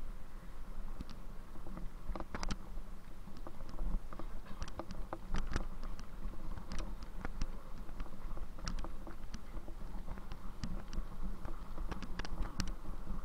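Bicycle rolling over a rough surface: irregular clicks and rattles over a steady low rumble.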